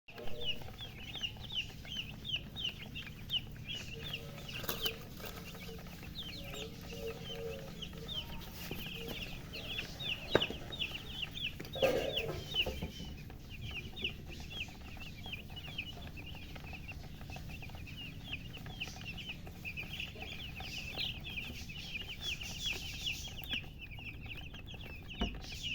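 Newly hatched chicks peeping loudly, a dense, continuous stream of short, high, downward-sliding chirps from several birds at once, with a few lower calls underneath.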